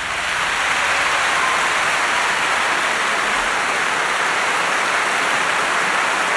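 Large concert-hall audience applauding steadily at the end of an orchestral performance.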